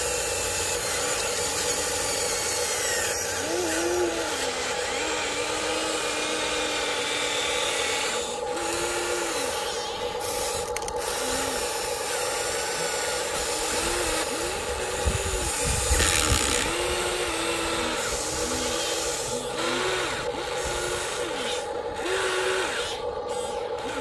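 Huina 1593 radio-controlled excavator's electric motors whining steadily, the pitch rising and falling over and over as the boom, arm and bucket are worked. A louder, gritty scrape of sand comes about fifteen seconds in.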